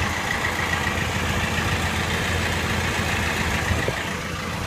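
Fiat Albea 1.3 Multijet diesel engine idling with the clutch pedal released, a steady high whirring noise over the low engine hum. The owner blames the noise on the clutch pressure plate and disc, since it stops when the clutch pedal is pressed.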